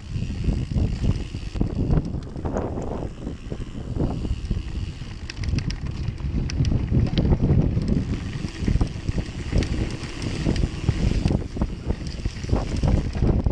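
Mountain bike riding fast over a rough, stony trail: tyres rumbling and crunching over gravel and rocks, with frequent rattles and knocks from the bike, and wind buffeting the microphone.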